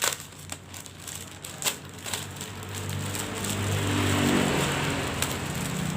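Plastic packaging crinkling and rustling as a parcel is handled and opened, with a few sharp taps in the first two seconds, then a denser, louder rustle from about halfway through.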